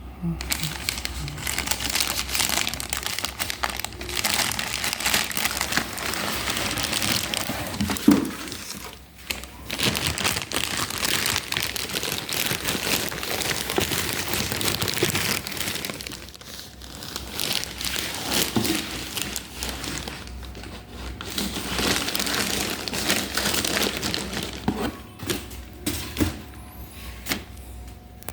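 Packaging crinkling and rustling as an electric instant water heater is unpacked from its box, in long stretches broken by short pauses, with one sharper crackle about eight seconds in.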